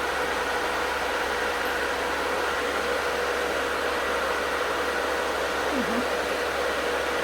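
Nail station's dust-collector fan running with a steady whoosh and a constant whirring hum.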